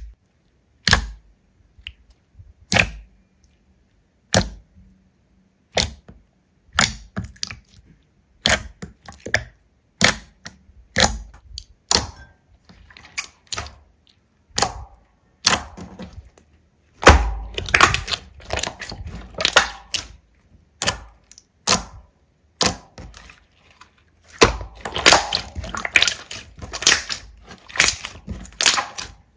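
Hands pressing and squeezing a large slime, making sharp clicks and pops about once a second. There are denser runs of crackling squelches just past the middle and again near the end.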